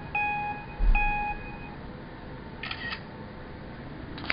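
Electronic beeps, one shortly after the start and a longer one about a second in, then a brief rattle of clicks around the three-second mark and another click at the end.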